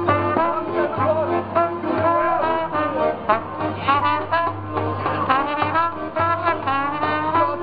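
Band music led by trombone and trumpet, the melody sliding between notes over steady, repeated low bass notes.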